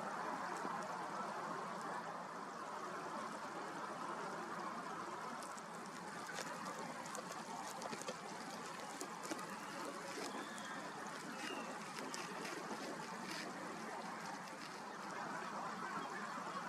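Steady trickling and lapping of water at the edge of a tidal estuary, with a few faint bird calls around the middle.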